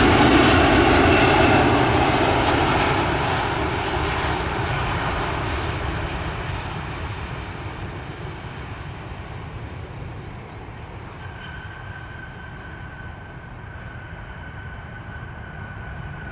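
Jet engines of an Airbus A330-200 arriving, loud at first and fading steadily over about ten seconds as the aircraft moves away. A faint steady high whine comes in about eleven seconds in.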